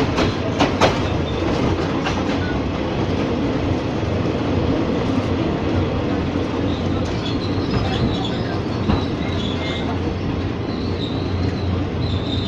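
Ex-JR 203 series train car running along Philippine National Railways track: a steady rumble of wheels on rail, with a few sharp rail-joint clicks in the first second and a faint high wheel squeal from about halfway through.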